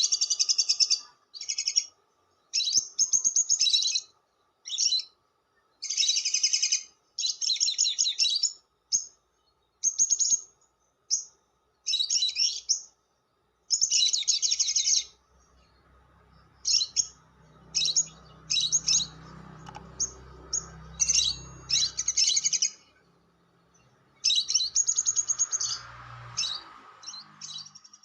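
Lovebird giving repeated bursts of fast, shrill chattering (ngekek). Each burst is a rapid run of notes lasting from a fraction of a second to about a second and a half, with short gaps between them. The bursts grow shorter and sparser in the second half.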